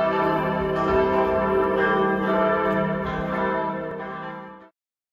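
Several church bells ringing together in a dense, steady peal of overlapping tones. The peal eases down slightly and cuts off abruptly about four and a half seconds in.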